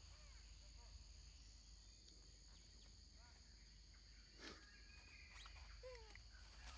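Faint forest ambience: a steady high-pitched insect drone with a few soft short calls, and a single soft knock about four and a half seconds in.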